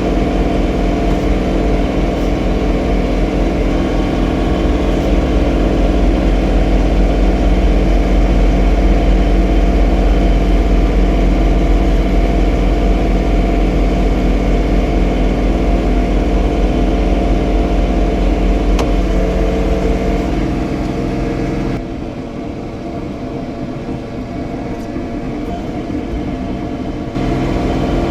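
John Deere 3046R compact tractor's diesel engine running steadily while snow blowing. About two-thirds of the way through it drops abruptly quieter for about five seconds, then returns to full level.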